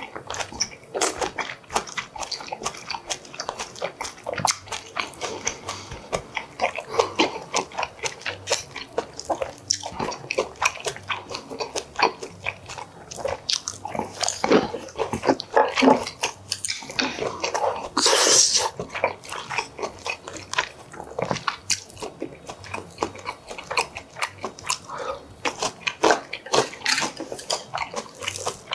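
Close-miked chewing of soft braised pork and kimchi, with wet mouth clicks and lip smacks coming fast and irregularly. One longer hiss about two-thirds of the way through.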